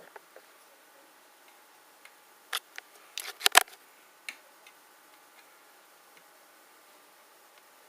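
A handful of sharp clicks and light knocks over a quiet hiss. Two come about two and a half seconds in, then a quick cluster about a second later that holds the loudest, and a last one just after four seconds.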